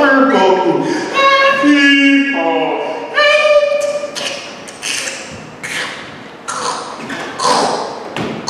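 A man's wordless vocalizing into a handheld microphone, sliding up and down in pitch, followed about halfway through by a string of irregular thumps and taps into the mic.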